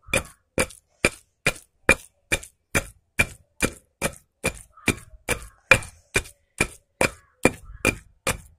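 A pestle pounding chutney paste in a heavy stone mortar (rolu): steady, even strokes a little over two a second, each a short knock.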